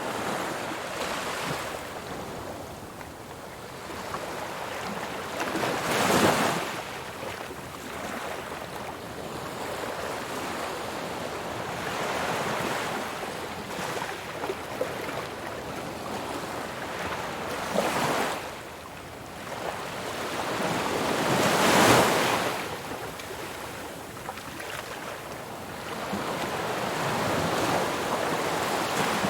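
Ocean waves breaking on a shore: a steady wash of surf, with louder breakers swelling and falling away about six seconds in, twice in the second half, and again at the very end.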